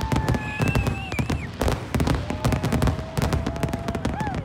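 Fireworks grand finale: a dense, rapid barrage of aerial shell bursts, bangs and crackles overlapping with no pause between them.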